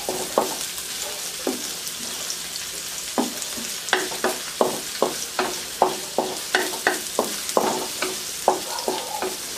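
Sliced onion and garlic sizzling in oil in a black wok, with a wooden spatula scraping and knocking against the pan as they are stirred. The strokes are few at first and come about two or three a second from about three seconds in.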